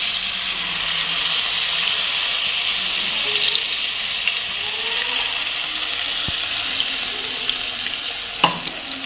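Pakoras (batter fritters) sizzling as they deep-fry in hot oil in a non-stick wok, a steady hiss that eases slightly near the end. One sharp click about eight and a half seconds in.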